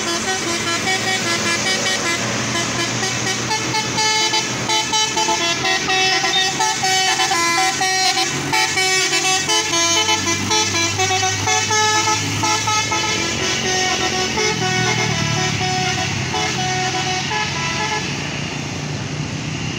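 Telolet multi-tone musical air horn on a Nissan Diesel truck hauling steel wire coils uphill, playing a long tune of quickly changing notes over the diesel engine. The tune fades after about 13 seconds, leaving the engine pulling on the climb.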